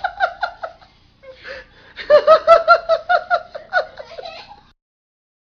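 A woman laughing hard in quick, high-pitched 'ha-ha-ha' pulses, in two bouts with a short pause near the one-second mark; the sound cuts off suddenly about five seconds in.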